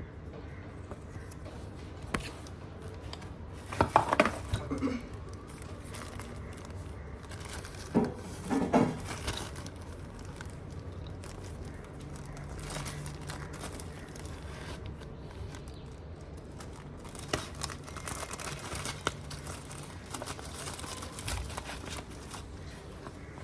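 Handling noises: crinkling with a few short clattering knocks, about 4 seconds in and again about 8 to 9 seconds in, as of packaging and plastic parts being handled. No motor is running.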